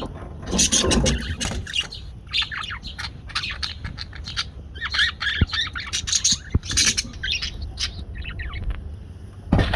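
Budgerigar chirping and chattering in quick, rapid bursts of squawky notes. A louder thump comes near the end.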